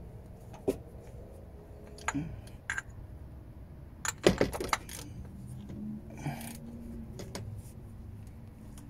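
Scattered light metallic clicks and clinks of hand tools and small parts being handled, with a quick cluster of clinks about four seconds in.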